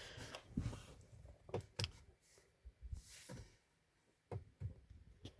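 A few faint, scattered clicks and soft knocks inside a quiet car cabin, with a brief hiss about three seconds in.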